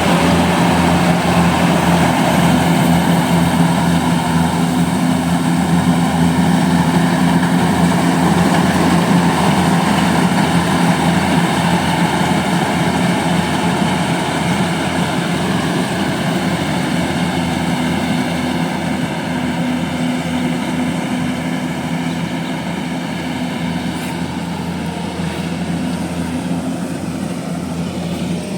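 Rice combine harvester's engine running steadily under load, a constant low drone that grows slowly a little quieter over the stretch.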